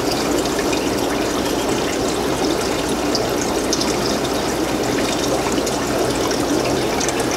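Water from a baby brine shrimp hatchery draining steadily through a thin tube into a small plastic cup, collecting the hatched shrimp.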